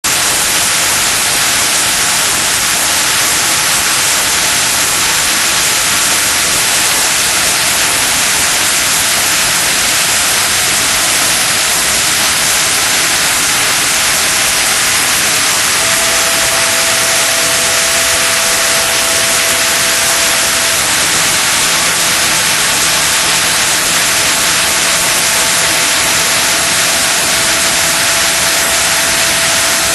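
Makino D500 five-axis vertical machining center cutting the NAS cone accuracy test piece: a steady loud hiss, with a faint thin whine that comes in about halfway through and returns near the end.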